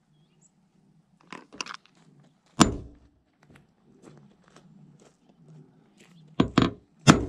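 A few sharp knocks and crunching scrapes from hand tool work on a truck's sheet-metal roof: a pair about a second in, the loudest about two and a half seconds in, and a quick cluster near the end.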